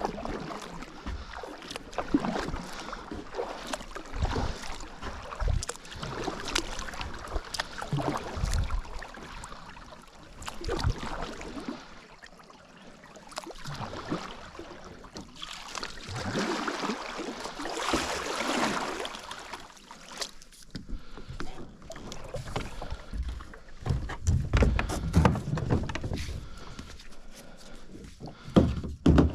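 Kayak on a river: irregular water splashing with knocks and bumps against the hull, louder in two stretches, the second with low thumps.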